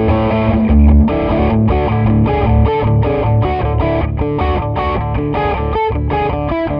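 Electric guitar played through distortion on a Porter Modern J90 P-90-style bridge pickup in a Jazzmaster-style guitar. It plays a quick riff of short, choppy notes and chords with a thick, crunchy low end.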